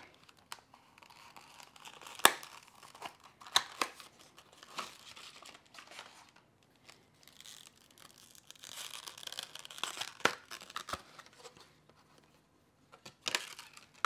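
Plastic packaging of an NVMe SSD being torn open and handled: crinkling and tearing, with several sharp clicks and snaps, the loudest about two seconds in.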